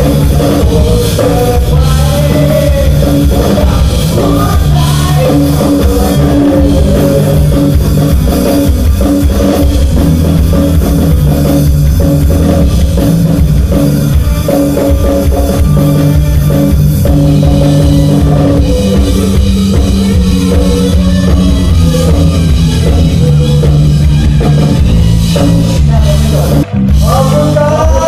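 A live band playing loud amplified music through a PA, with a drum kit and a singer. The sound drops out for a moment near the end.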